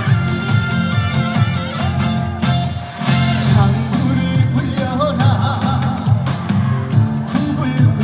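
Live band playing a trot song over the PA, loud and steady with a strong bass beat; a wavering melody line comes in about four seconds in.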